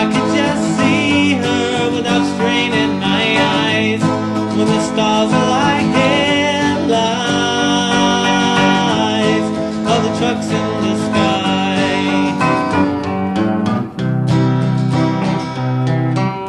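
A song's passage between verses with no words sung: acoustic guitar with a wavering lead melody line over it.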